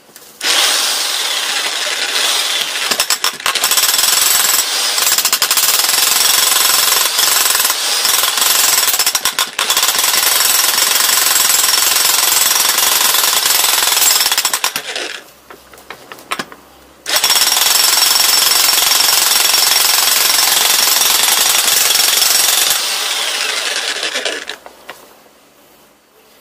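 Steinhaus Pro DH1700 corded electric demolition hammer pounding a chisel bit into a stone boulder: two long runs of rapid hammering with a short pause of about two seconds between them, the second run easing off briefly before it stops near the end.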